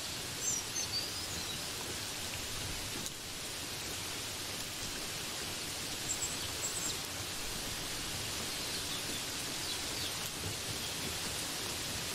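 Steady rain, an even hiss with no let-up. A few brief high chirps sound over it about half a second in and again around six to seven seconds in.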